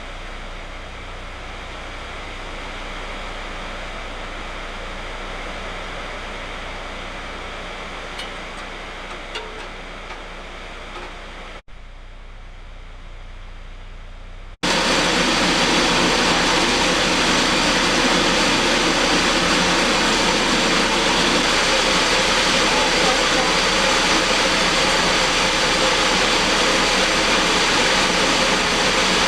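Steady mechanical running noise from a machine. It drops to a quieter hum at an abrupt cut, then comes back much louder and steady about fifteen seconds in.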